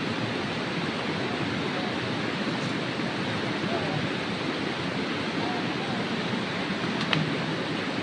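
A steady rushing noise with no change in level, and one sharp click about seven seconds in.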